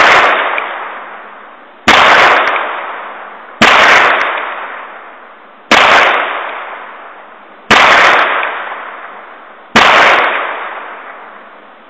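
Ruger Single Six single-action revolver in .22 Magnum fired six times, about two seconds apart. Each sharp shot rings out and fades slowly before the next.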